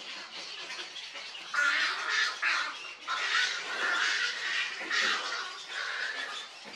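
Young cattle egrets in a nesting colony giving harsh, squawking begging calls, several at once, in loud bouts starting about a second and a half in: hungry chicks begging to be fed.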